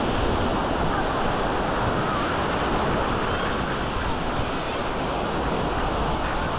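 Small sea waves washing steadily onto a sandy beach, with wind rumbling on the microphone and faint voices of people on the beach.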